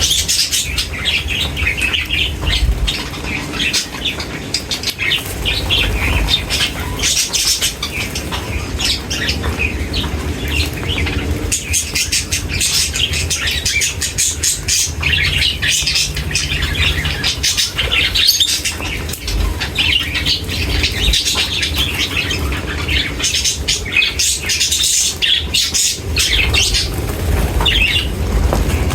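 A flock of small birds chirping and calling densely and continuously, with wing flutters, over a steady low rumble.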